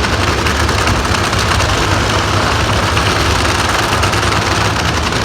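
Nitro-burning drag-racing engine running loud and steady at low throttle, with a dense rapid crackle and no rise in revs.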